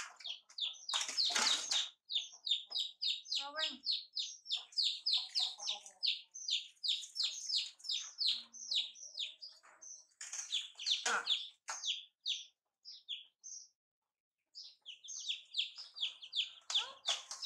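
Young chicks peeping: a rapid run of short high chirps, about four a second, pausing briefly near the end before starting again. Louder shrill squeals from the baby macaques cut in about a second in and again around the eleven-second mark.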